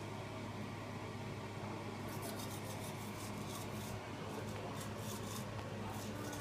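Manual toothbrush scrubbing teeth, a run of quick, irregular rubbing strokes starting about two seconds in, over a steady low hum.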